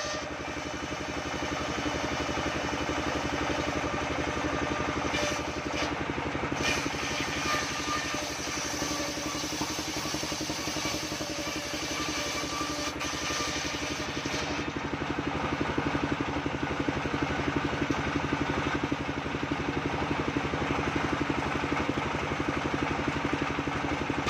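An engine-driven homemade circular sawmill running steadily while its blade rips a coconut-wood log lengthwise into beams. The drone of the engine and blade gets somewhat louder from about halfway through.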